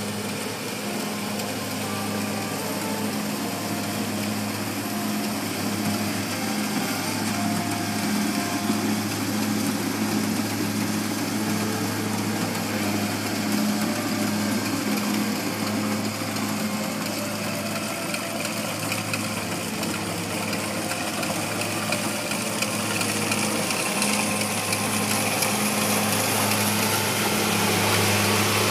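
Kubota DC-70G rice combine harvester's diesel engine running steadily under harvesting load, growing louder as the tracked machine comes close in the last few seconds.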